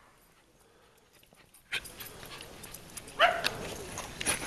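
A dog gives one short bark about three seconds in, over steady background noise that starts suddenly near the middle.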